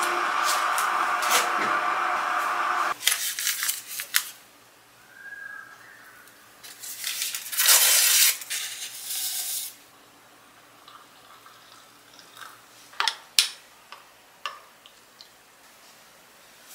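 A steady hiss for about the first three seconds. Then a paper packet of hot chocolate mix is torn open and the powder shaken into a ceramic mug, a loud rustling about seven to ten seconds in. A few sharp ceramic clinks come near the end.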